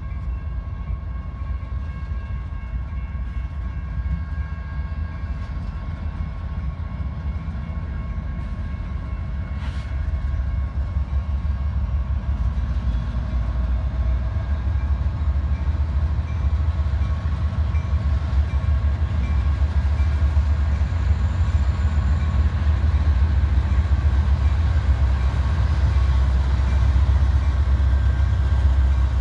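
Train's diesel locomotives rumbling heavily and growing steadily louder as the train draws closer. Faint steady high tones sit over the rumble.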